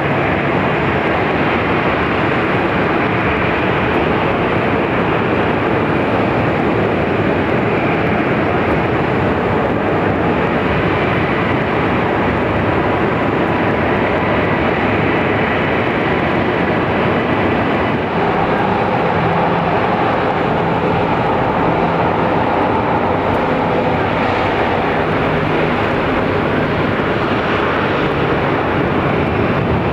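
Boeing 737-800's CFM56-7B jet engines running with a steady, continuous rush. A faint hum comes in about two-thirds of the way through.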